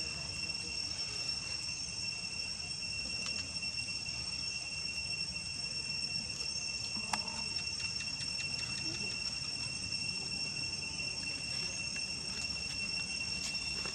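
Steady, high-pitched insect drone over a low background rumble, with a few faint clicks and one sharper click about seven seconds in.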